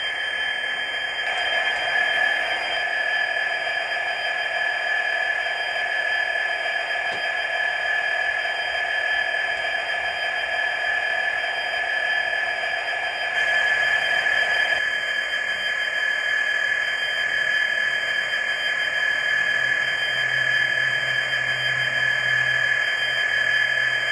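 Hornby TTS Class 66 sound decoder playing the model's diesel engine sound through its small onboard speaker, running steadily with a constant high tone. The sound shifts about a second in and again around 14 seconds, and a lower note comes in from about 19 seconds.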